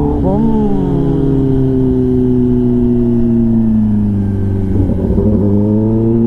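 Kawasaki ZX-10R inline-four through an SC-Project exhaust on the move. There is a quick blip of revs at the start, then the engine note falls slowly for about four seconds as the bike rolls off. After a brief unsteady moment about five seconds in, it settles into a steady, slightly rising note.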